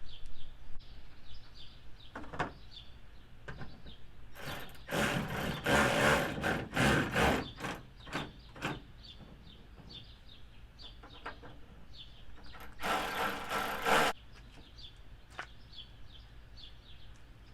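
Power tool with an 8 mm socket driving a taillight's mounting bolts in, in two runs: a few spurts about four seconds in, then one short run near the end.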